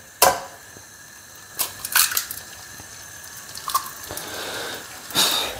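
Eggs being cracked on the edge of a frying pan and dropped in: a few sharp cracks and clicks spread over several seconds.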